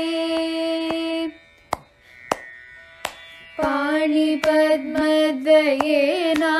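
Female Carnatic-style singing of a Sanskrit hymn. A long held note cuts off about a second in, leaving a quieter gap of about two seconds broken by a few sharp percussion strokes. The singing then resumes with sliding, ornamented pitch over light percussion strokes.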